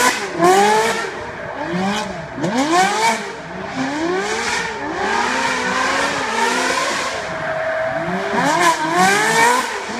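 Two Ferraris drifting together: their engines rev up and down in repeated swings about once a second, over bursts of tyre squeal as the spinning rear tyres slide across the asphalt.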